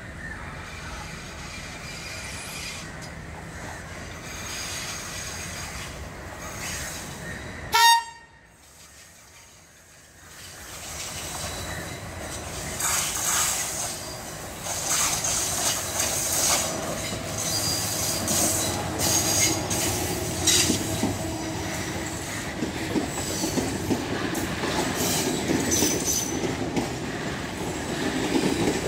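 Sri Lanka Railways Class S8 diesel train sounding one short, loud horn blast about eight seconds in. It then approaches and passes close, its running noise growing into a steady rumble with rail clatter and brief high wheel squeals on the curve.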